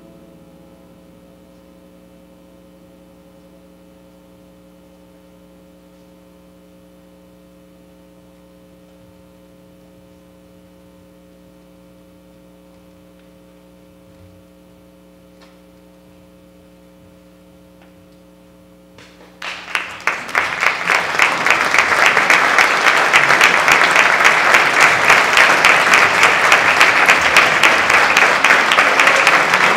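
A chamber ensemble holds a soft, steady chord, the final sustained notes of the movement. About two-thirds of the way in, the audience breaks into loud applause that continues.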